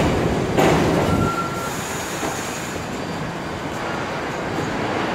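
R68 New York City subway cars rolling into the station and slowing to a stop. There is heavy wheel rumble with two sharp knocks in the first second, a brief thin squeal about a second in and a higher one just after, and then a quieter, steady noise from the standing train.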